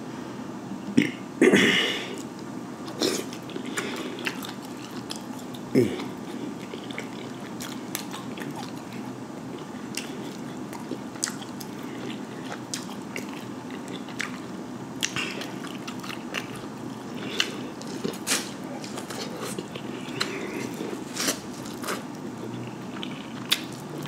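Eating sounds: irregular crackling and sharp clicks as sauce-coated, head-on black tiger shrimp are pulled apart and peeled by hand, with wet chewing in between. A louder crunch about a second and a half in and another about six seconds in.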